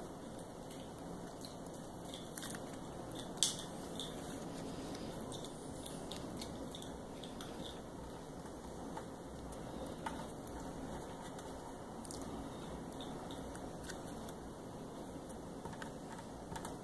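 Faint crinkling and rustling of a vinyl decal and its paper backing being handled and pressed on by hand, with a few short sharp clicks, the loudest about three and a half seconds in.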